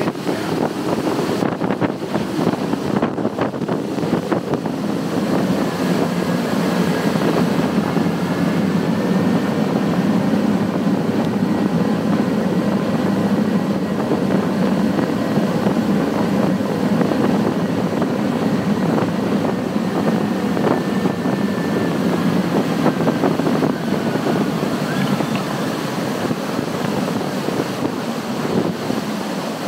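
Triple Mercury 600 hp V12 Verado outboards running at speed, a steady engine drone mixed with the rush of the wake and spray.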